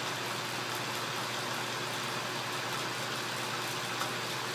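Atlas 10D metal lathe running steadily at its top speed, about 2,190 RPM in high belt and fourth gear: an even running noise from the motor, belts and spindle. The spindle is still warming up at this speed.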